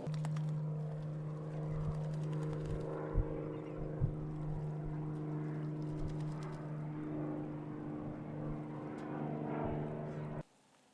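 A motor running steadily with an unchanging low hum, with a couple of brief low thumps; it cuts off abruptly near the end.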